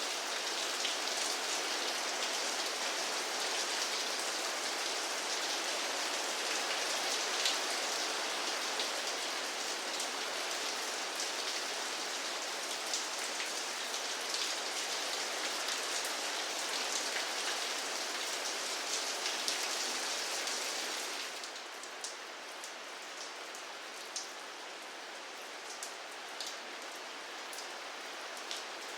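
Steady rainfall, a dense hiss with individual drops ticking through it; about two-thirds of the way in the rain eases and becomes quieter and less hissy, with separate drops standing out more.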